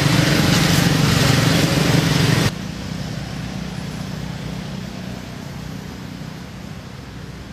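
A vehicle engine running steadily. About two and a half seconds in, the sound drops sharply to a quieter, steady hum that slowly fades.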